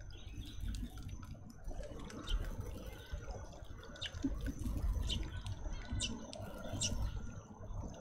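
Birds at a garden seed feeder: scattered short, high ticks and chirps, a thin steady high tone, and a low rumble throughout.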